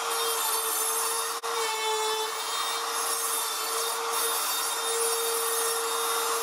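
Cordless trim router running at full speed while its bit cuts along a laminate floorboard: a steady high whine over the rasp of the bit in the board, with a brief dip about a second and a half in. The cut is removing the centre section of a damaged board.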